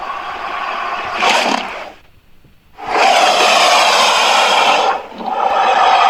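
Invented creature calls made as sound effects for a Kaprosuchus, an extinct crocodile relative: a harsh, rasping call for about two seconds, a short pause, then a longer rasping call, a brief break, and another starting near the end.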